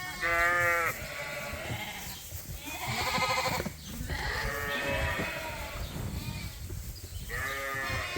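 Lambs bleating, about four calls, the first the loudest, with low knocks and rustling underneath.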